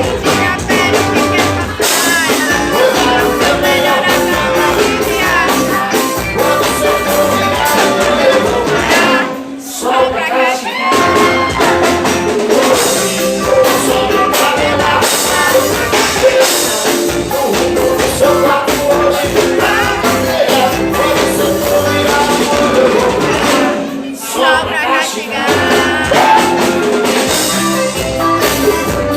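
Live band music with a singer, loud and continuous, dropping back briefly twice between phrases.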